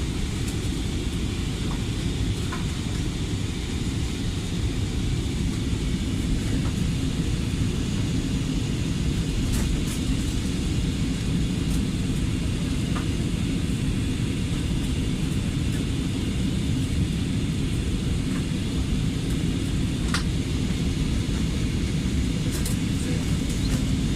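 Airbus A320 cabin noise on final descent: a steady low rumble of engines and airflow, with a few faint clicks.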